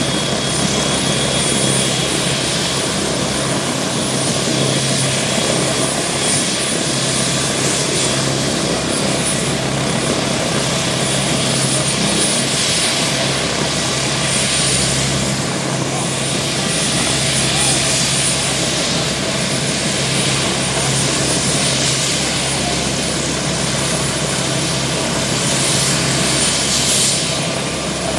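Bell UH-1 Huey helicopter running on the ground before lift-off: a steady turbine whine with rotor noise under it.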